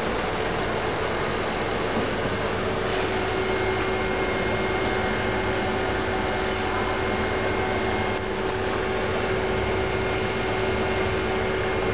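Steady running noise of industrial machinery: a constant low hum with a steady mid-pitched tone and a faint high whine, unchanging throughout.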